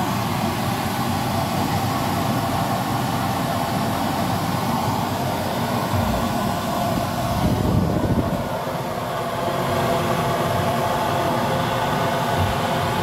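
Homemade waste-oil burner running with air forced in by a hair dryer: the blower and the burning oil make a steady rushing noise, with a brief louder swell about eight seconds in.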